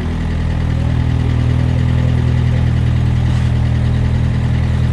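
Custom rock crawler's engine running steadily as the buggy crawls over rocks.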